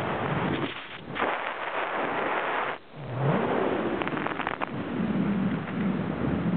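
Wind rushing and buffeting on the microphone during a skydiving descent, with two brief dips about a second in and just before three seconds in. A faint, wavering low hum joins it after about five seconds.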